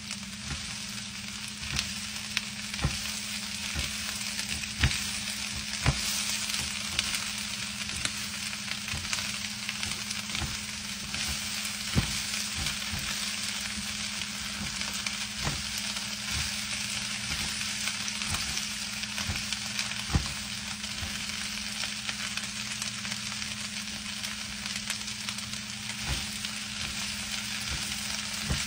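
Chopped cabbage and onions frying in hot olive oil in a skillet, a steady sizzling hiss as they are tossed and stirred, with scattered knocks of the utensil against the pan.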